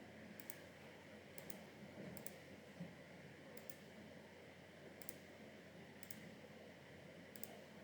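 Faint computer mouse clicks, about seven of them spaced roughly a second apart, each a quick pair of snaps, over a low room hiss.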